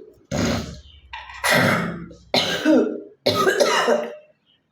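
A woman coughing hard four times in a row, the later coughs rasping with voice, then stopping.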